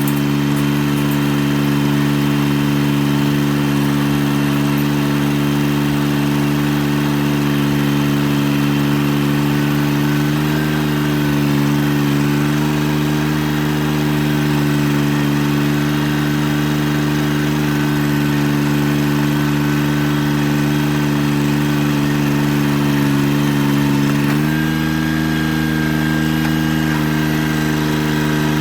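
Tractor engine running at a steady speed, then revving up a little near the end.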